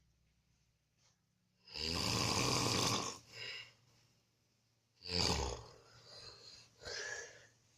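A man snoring in his sleep: one long, rasping snore about two seconds in, then a sharper, shorter snort around five seconds in followed by softer breaths.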